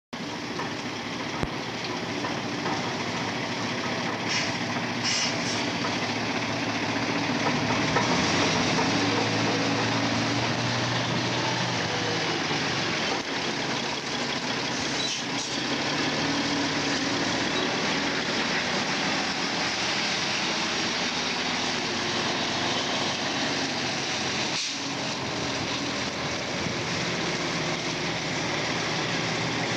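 Diesel engine of a MAN F8 26.291 hook-lift truck running at low revs as the truck pulls away and moves slowly, getting louder about eight seconds in. A few short hisses come about four to five seconds in.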